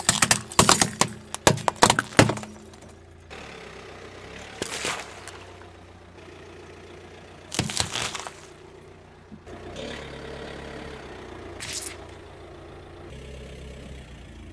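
Car tyre rolling over and crushing small plastic emoji spring toys: a quick run of sharp cracks and snaps over the first two seconds or so. Then separate crunches as the tyre crushes an onion, garlic and other produce, about five, eight and twelve seconds in, with a low steady hum between.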